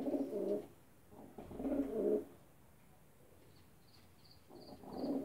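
Fantail (lakkha) pigeons cooing in three low, throaty bursts, the last near the end. A faint run of about five short high pips comes just before the last coo.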